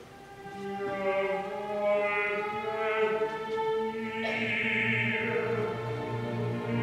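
Symphony orchestra playing a slow passage of sustained chords that starts soft, builds, and swells markedly louder about four seconds in.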